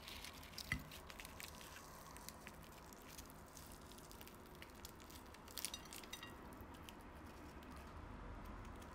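Crisp crust of a flour-battered fried chicken thigh crackling as it is torn apart by hand: scattered small crackles, one sharp one near the start and a quick cluster a little past halfway.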